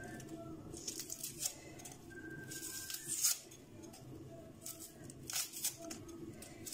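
Dry red-onion skin crackling and tearing as a knife peels it off the bulb by hand, in a few short papery rustles.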